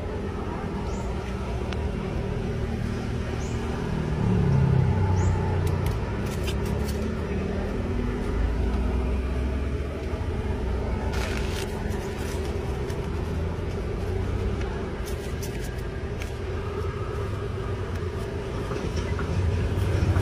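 Road traffic rumbling steadily, swelling louder as vehicles pass about four seconds in and again near the end, with a few short clicks about halfway through.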